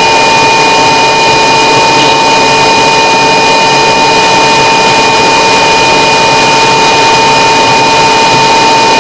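Light aircraft's engine and propeller running loud and steady, with a constant high whine through the drone, as the plane rolls along the runway.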